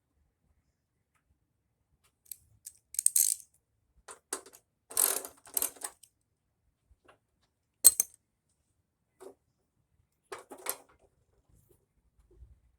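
Small metal parts and hand tools handled at the work: an irregular run of short clinks and rattles, with one sharp click about eight seconds in.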